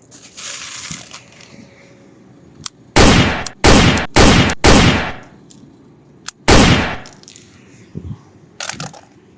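Five loud, sharp gunshot-like cracks from toy guns being fired, each ringing off briefly. Four come in quick succession about three seconds in, and a fifth follows about two seconds later.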